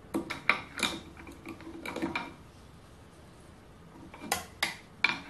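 A tap and tap wrench turned by hand to cut a thread in a steel Morse taper, giving short metallic clicks and clinks in three bunches: near the start, about two seconds in, and past four seconds. The tap is cutting freely, with no sign of binding.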